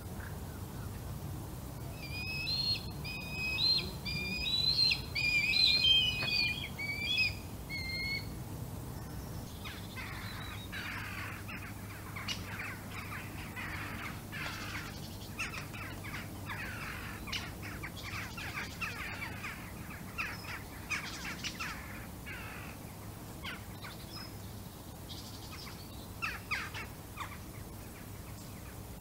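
Red kite chicks calling for food: loud, wavering whistled calls for several seconds, followed by a long run of shorter, rougher bird calls.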